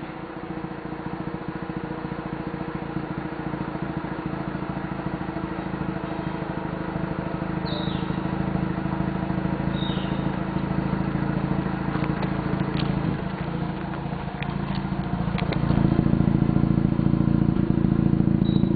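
2004 Mazda RX-8's twin-rotor rotary engine idling steadily through a Borla cat-back exhaust, a few faint clicks in the middle; the exhaust note grows louder about three quarters of the way through and holds there.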